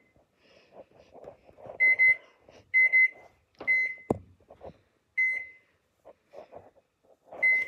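Microwave oven keypad beeping as its buttons are pressed one at a time: five short, high beeps at uneven intervals. A single sharp click falls about four seconds in.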